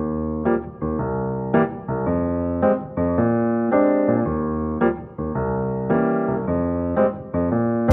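Background piano music: a melody of sustained chords that change about once a second.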